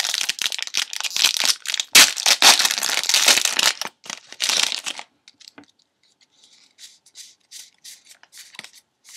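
A Magic: The Gathering booster pack's foil wrapper being torn open and crinkled, loud and crackly for about five seconds. Then come only faint soft rustles and ticks as the cards are slid out and handled.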